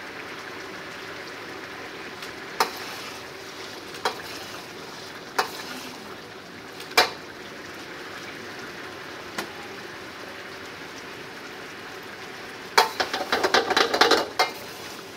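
Sauce simmering with a steady hiss in an iron wok while it is thickened. A ladle knocks against the wok a handful of times, then a quick run of ladle clanks and scrapes about 13 seconds in as the sauce is stirred.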